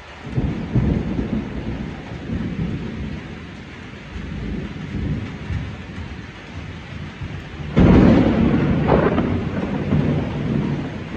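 Thunder in a tropical thunderstorm: a low rolling rumble that swells just after the start, then a sharp, much louder clap about eight seconds in that keeps rolling, over steady rain.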